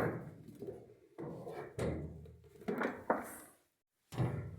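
A series of about five knocks and clunks, each dying away quickly, from metal parts of a milling machine being handled.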